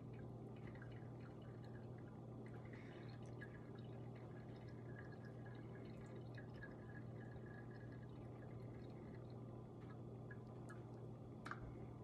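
Faint dripping of a cornstarch-and-water solution as it slowly filters through a coffee filter into a drinking glass, with small scattered ticks over a steady low hum and one sharper tick near the end.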